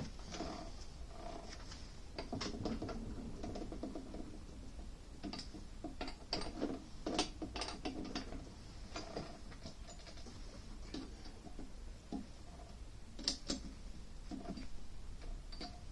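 Old Winfield metal lathe worked by hand: irregular metallic clicks and rattles as the chuck and its gearing are turned and the tool is set against the stock, checking how far the chucked stock runs out.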